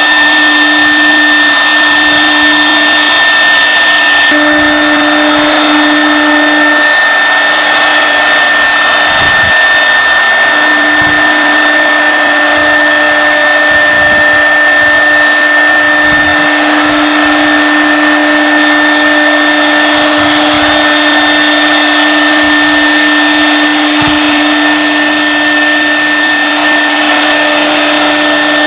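CNC router running with a steady high whine from its spindle over a continuous mechanical hiss. The lower hum drops out twice in the first third, and the hiss grows brighter near the end.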